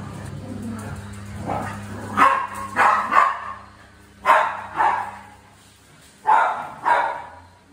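A dog barking in play during a chase with another dog: about eight barks, mostly in quick pairs, with short pauses between the pairs.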